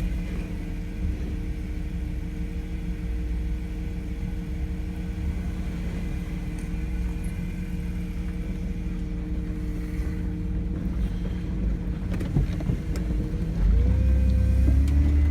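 Truck engine running steadily at idle, then picking up with a rising pitch and a louder rumble near the end as the truck pulls away.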